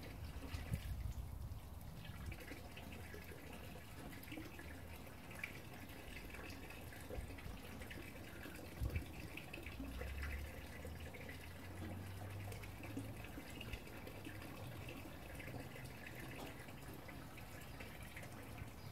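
Faint water trickling and splashing from a homemade ram pump into a drum, with a few faint knocks.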